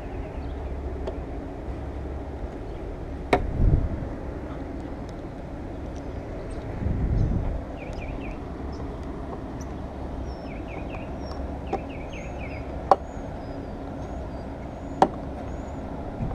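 Outdoor background of a low steady rumble that swells briefly twice, with small birds chirping in short bursts. Three sharp clicks or taps from work at the car stand out as the loudest sounds.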